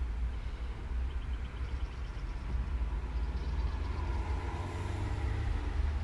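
Wind buffeting the camera's microphone: a steady low rumble that flickers in level.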